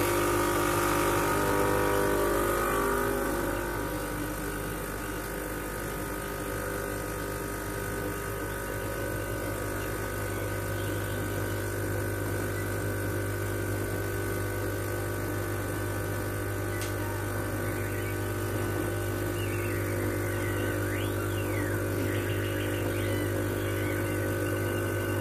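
Gaggia Classic espresso machine's vibratory pump buzzing steadily while it pulls a double shot. It is louder for the first three seconds or so, then settles into a lower, even buzz as pressure builds against the coffee and espresso pours into the cups.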